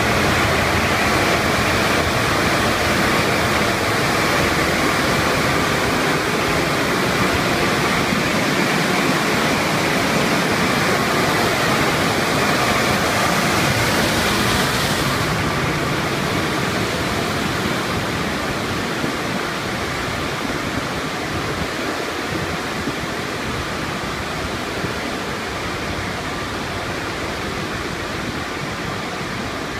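Steady rushing noise of car-wash tunnel equipment, with wet cloth brushes sweeping over the car's roof, heard from inside the car. About halfway through the highest hiss drops away, and the noise then slowly fades.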